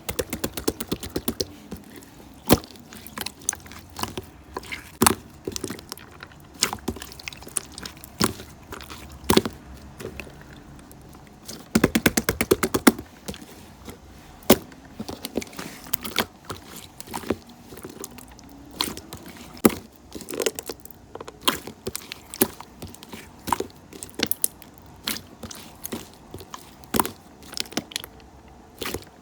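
Keyboard keys clicking in irregular keystrokes, as in typing, with a quick run of rapid keystrokes about twelve seconds in.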